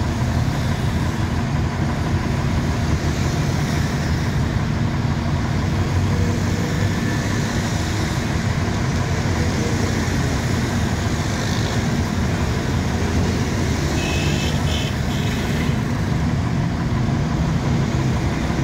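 Heavy diesel engine of a recovery crane truck running steadily at a constant pitch. A few brief higher-pitched sounds come about three quarters of the way through.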